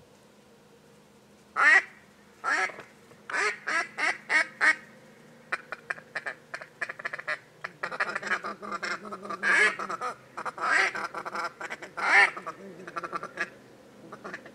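Duck quacking blown on a hunter's duck call close by. A few single quacks come first, then a quick run of about five, then a long fast string of quacks with louder ones scattered through it until near the end.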